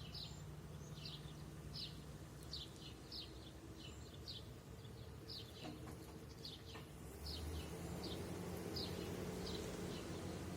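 A bird chirping over and over, short high chirps about once a second, over a faint steady low hum.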